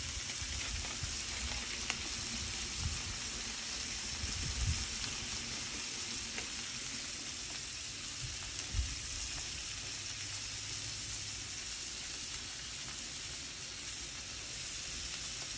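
Balls of ground beef, some topped with thin-sliced onion, sizzling steadily on a hot Blackstone flat-top griddle, with a couple of soft low knocks.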